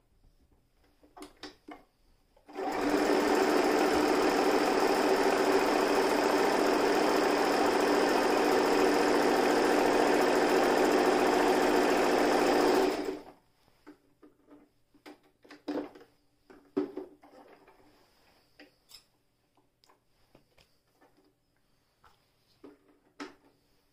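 Toyota Jeans JS021 electric sewing machine stitching fabric at a steady speed, starting about two and a half seconds in and stopping about ten seconds later. A few soft knocks and rustles follow as the fabric is handled.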